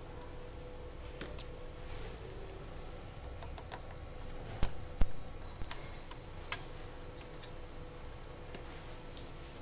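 A handful of sharp clicks and taps from hands handling parts inside an opened projector, the loudest just past halfway, over a steady faint hum.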